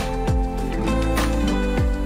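Background music with a steady beat: sustained chords over a repeating drum pattern.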